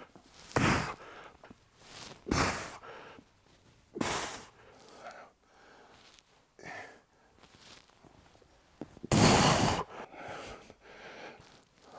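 A man's hard, forceful breaths out while lifting heavy dumbbells, one every second or two, the longest and loudest about nine seconds in.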